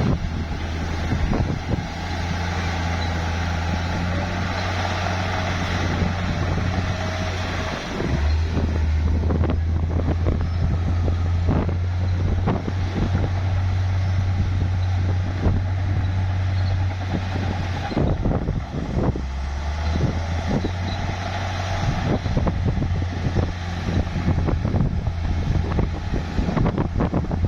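Heavy bulldozer's diesel engine running hard as it pushes dirt, its drone stepping up about eight seconds in and shifting again around eighteen seconds in, with scattered clanks and knocks throughout.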